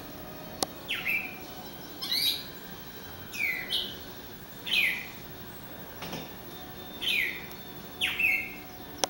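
A songbird singing a series of short, downward-slurring whistled notes, about one a second, as it faces its own reflection in a glass door. A single sharp tap sounds about half a second in.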